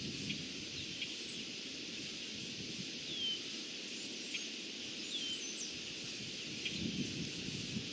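Outdoor ambience: a steady hiss with small birds giving short down-slurred chirps now and then, and a low rustling of leaves near the end.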